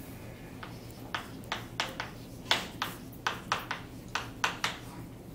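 Chalk tapping and scratching on a blackboard as someone writes: a run of short, sharp taps, about three a second, starting about a second in.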